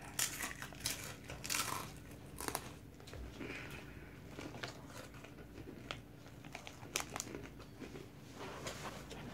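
Takis rolled tortilla chips crunching as they are chewed, with crinkling of the chip bag. Faint, with scattered sharp crackles, thicker in the first few seconds and again about seven seconds in.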